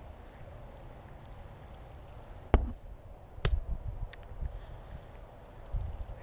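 Sharp clicks and knocks from a baitcasting rod and reel being handled, two main clicks about a second apart with the first the loudest, over a low wind rumble on the microphone.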